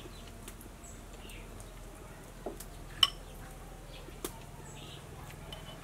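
Metal spoon clinking against a ceramic soup bowl and plate during a meal. There are a few light clinks and one sharper, briefly ringing clink about three seconds in.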